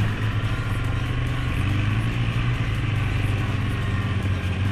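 Suzuki King Quad 750 ATV engine running at a steady pace while riding, a constant low hum with no revving.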